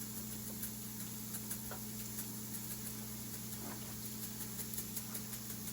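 Steady low electrical hum with faint, scattered light clicks and taps, more frequent toward the end, from food being handled and assembled at the kitchen counter.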